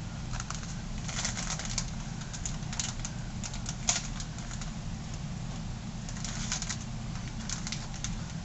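Plastic bag of shredded cheese crinkling and rustling in irregular bursts as it is pulled and worked at to open it, over a steady low hum.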